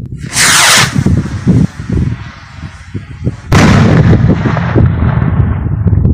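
Firework rocket launching with a sudden loud whoosh about half a second in, its hiss fading as it climbs. About three and a half seconds in it bursts with a loud bang that rumbles on and dies away slowly.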